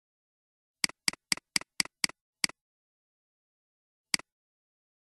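Computer mouse clicking: seven quick clicks over about a second and a half, then a single click near the end.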